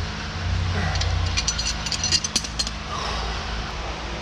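A quick run of light metallic clicks and clinks from hand tools on steel tractor parts in the middle, over a steady low hum.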